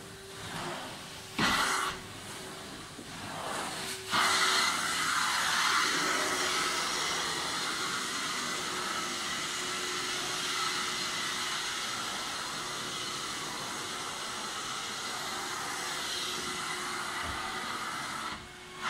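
Carpet-cleaning extraction wand and vacuum hose drawing air and water out of the carpet: a steady rushing hiss, with a few louder surges in the first four seconds before it settles to an even level.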